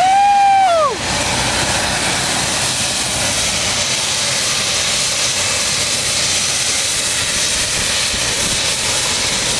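A man's loud yell, rising and falling over about a second, then the steady rushing noise of a turbine helicopter running with its rotors turning, with a faint high whine.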